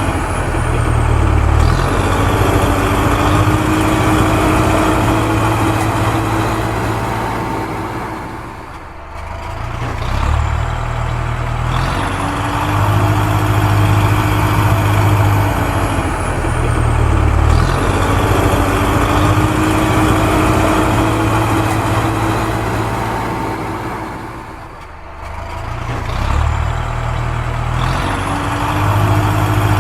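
Recorded heavy-vehicle engine sound effect, a truck or digger engine running and idling, played on a loop that repeats about every sixteen seconds with a brief drop in loudness each time it restarts.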